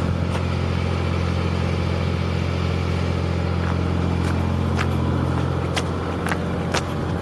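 A boat's engine running steadily at idle with a low, even drone. A few sharp ticks sound over it in the second half.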